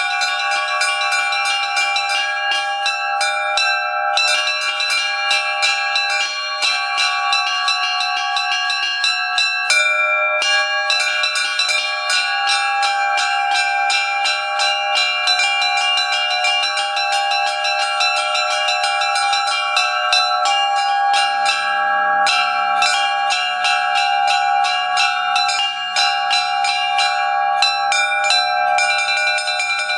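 Small Orthodox chiming bells rung by hand in a fast, dense trill, many strikes a second, with their tones ringing on over one another. About two-thirds of the way through, a deeper bell joins. The ringing comes from a rope linkage freshly shortened and set at a new angle, which the ringer says is what makes a quick, even trill possible.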